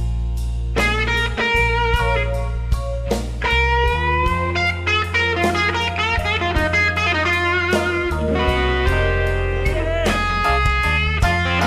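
Electric guitar solo with bent notes, played over bass and drums in a slow blues band performing live.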